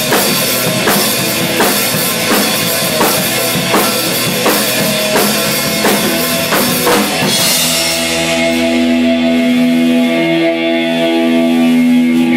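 Rock music with a drum kit played with a steady beat and crashing cymbals; about seven seconds in the drumming stops and a held chord rings on to the end.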